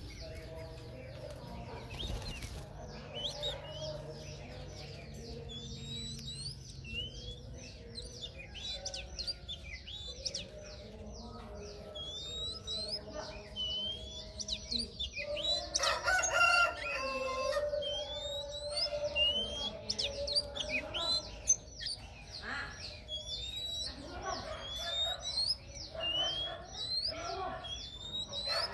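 Oriental magpie-robin singing: a long run of short, high whistled notes, many of them quick rising glides, repeated over and over. A rooster crows loudly about halfway through.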